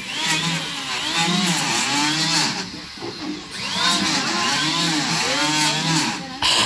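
Handheld electric power tool cutting into a wooden boat gunwale. Its motor pitch drops and recovers in repeated arcs about once a second as it bites into the wood and eases off, with a short let-up about three seconds in.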